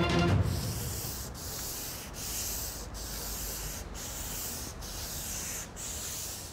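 Hand sanding of a wooden door panel with a sanding block: even back-and-forth strokes of abrasive on wood, about one stroke a second.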